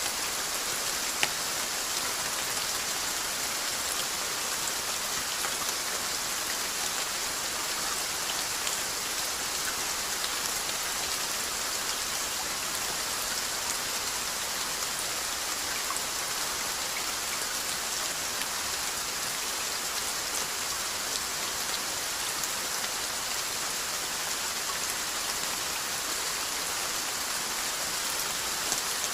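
Steady rainfall: an even hiss of rain with scattered drops pattering on a surface, one drop a little louder about a second in.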